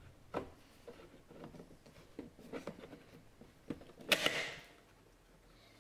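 Plastic side-mirror glass being pressed onto the mirror housing of a 2006 Ford Explorer: a few faint clicks and taps, then a louder snap about four seconds in as it seats.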